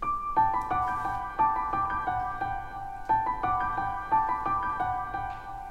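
Background music: a gentle melody of evenly paced struck notes, about three a second, each ringing away.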